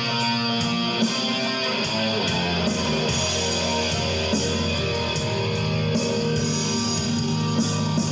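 Rock music with electric guitars playing an instrumental passage, with no singing.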